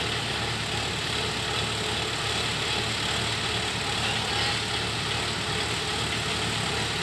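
Kubota DC-105X combine harvester's diesel engine running steadily while the machine stands still.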